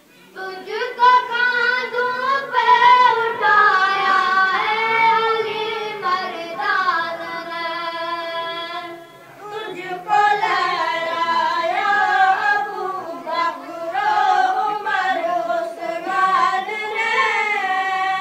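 A high voice sings an Urdu tarana in long, wavering held notes, with no instruments heard. It pauses briefly about nine seconds in, then goes on.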